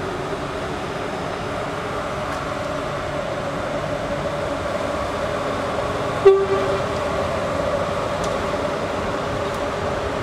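Ex-NS class 1600 electric locomotive rolling slowly past with a steady hum. About six seconds in there is a single brief, sharp toot of its horn.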